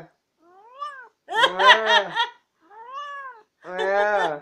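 Pet cat meowing repeatedly in a talkative back-and-forth: four rising-then-falling meows about a second apart. The second and fourth are louder and are overlapped by a lower human voice.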